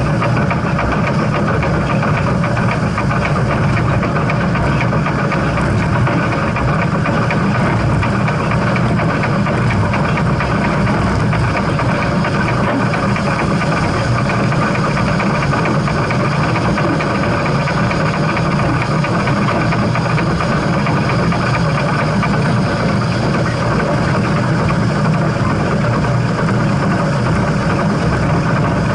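Steam train running: a steady, loud mechanical rumble that does not break or change.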